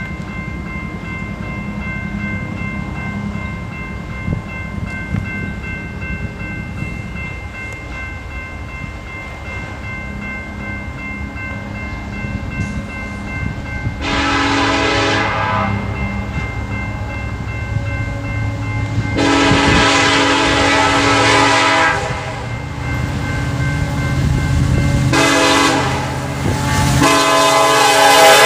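Air horn of an approaching BNSF diesel freight locomotive sounding the standard grade-crossing signal: two long blasts, a short one, then a long one starting near the end. Under it, the train's rumble grows louder as it nears.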